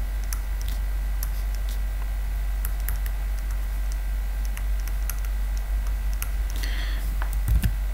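Stylus tapping and scratching on a graphics tablet while writing by hand: scattered, irregular light clicks over a steady low hum.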